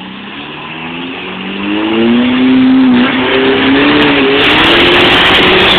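Four-cylinder 4x4 engine revving hard under load, its pitch rising and the sound getting much louder about two seconds in, then held high as it powers at the obstacle.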